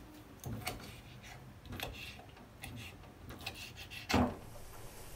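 Knife cutting meat on a chopping board: scattered light taps and scrapes, with one louder knock about four seconds in.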